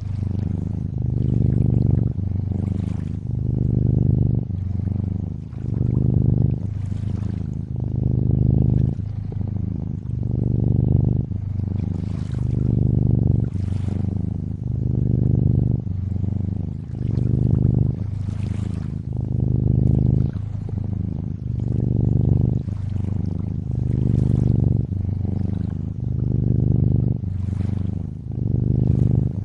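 Cat purring, a low rumble that swells and eases about every one and a half seconds with each breath, over gentle lake water trickling and lapping.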